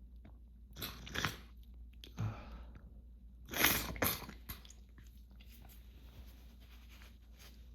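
A person sniffling and snuffling through an itchy, allergy-irritated nose: several short, sharp sniffs, mostly in pairs, the loudest pair about halfway through, then fainter snuffles.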